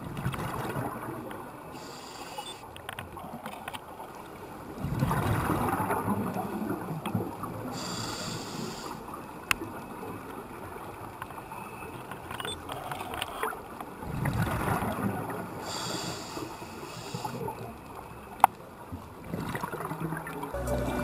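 Scuba diver's regulator breathing, heard through an underwater camera housing: a short hiss on each breath in, then a longer gurgling rush of exhaled bubbles, repeating slowly every eight or nine seconds. Two sharp clicks stand out, one about halfway through and one near the end.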